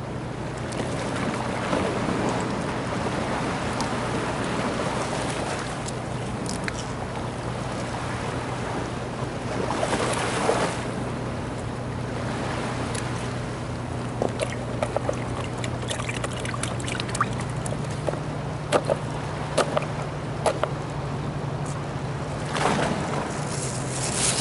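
Steady low drone of a distant engine that steps up in pitch a little past the middle, over water washing at the jetty, with a run of short sharp clicks and knocks in the second half.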